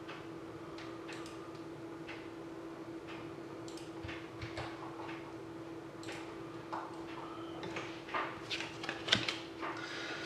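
Computer keyboard and mouse clicking while the randomizer lists are set up: scattered light clicks that grow busier and louder over the last couple of seconds, over a steady electrical hum.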